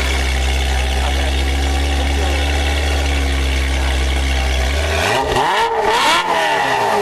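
Ferrari 348 TS's 3.4-litre V8, fitted with a modified exhaust, idling steadily and very loud. About five seconds in, one quick rev climbs to a peak and falls back toward idle.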